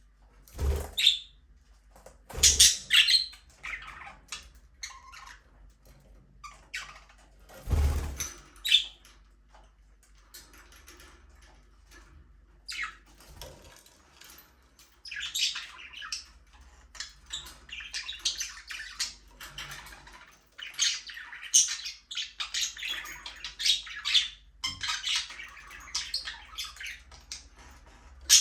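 Budgerigars chirping and squawking in short bursts, busier and more continuous from about halfway on. A few loud low thumps in the first eight seconds.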